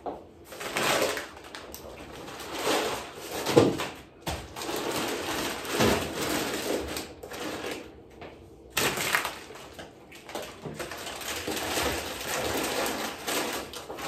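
Plastic packets of dry pasta rustling and crinkling as they are handled and packed into a kitchen drawer, in uneven swells with a few sharper knocks as packets are set down.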